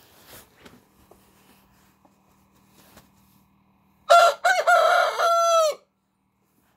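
A rooster crows once, about four seconds in: a loud cock-a-doodle-doo under two seconds long, a few short broken notes and then a long held note that drops in pitch as it ends.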